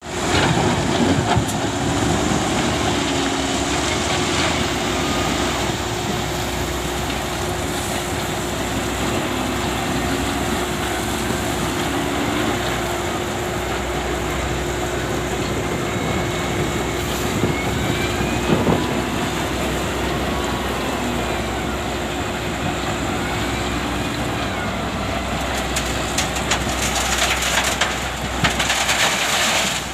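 Diesel engine of an SDLG earthmoving machine running steadily while working, with a constant hum and a couple of brief knocks.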